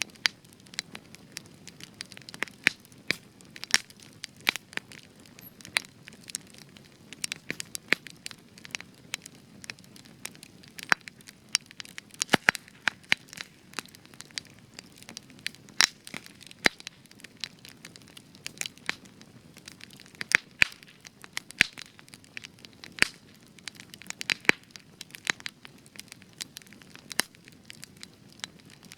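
Spruce-wood campfire burning, with frequent sharp, irregular crackles and pops over a low steady hiss of the flames.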